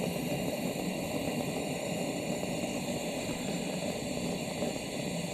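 Pressure lantern burning with a steady hiss, flame shooting out at the bottom of its mantles, so it is not yet burning cleanly.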